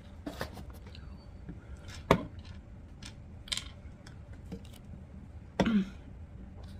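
Close-miked eating: scattered clicks and smacks of chewing and of food being picked up, the sharpest about two seconds in. A brief voiced sound comes near the end.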